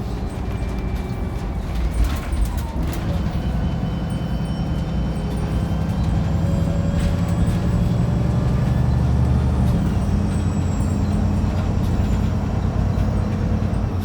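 Diesel engine of a Wright Pulsar 2 single-decker bus heard from inside the bus, working under load. It gets louder from about five seconds in and eases off after about ten. A short run of knocks and rattles comes around two seconds in.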